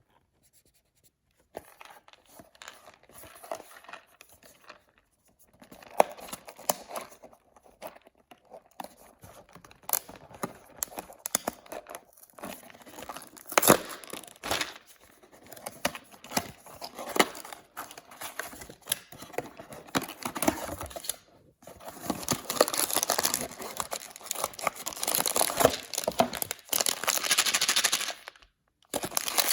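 Toy blind-bag packaging being crinkled and torn open by hand, with irregular crackles and sharp snaps. It starts after a moment of near silence, turns into denser, steadier crinkling about two-thirds of the way in, and pauses briefly near the end.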